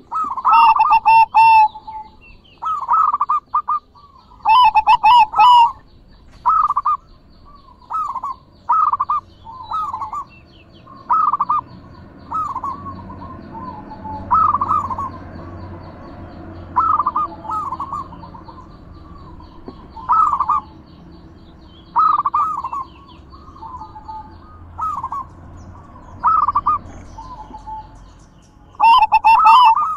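Perkutut (zebra dove) cooing over and over: short bubbling coo phrases every one to two seconds, a few of them very loud and distorted.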